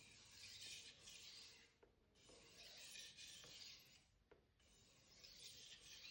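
Steel blade of a Global carving knife stroked lightly across a 1000 grit Naniwa waterstone for burr removal: a soft scraping hiss in three passes of about a second and a half each, with short pauses and faint clicks between them.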